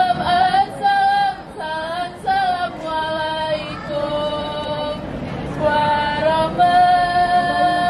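A woman singing a melody, with a long held note in the second half.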